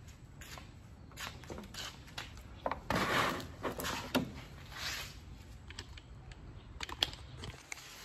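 Light handling noises from someone moving about and settling down on a tiled floor: a run of short rustles and scrapes, the loudest about three seconds in, and a few sharp clicks late on.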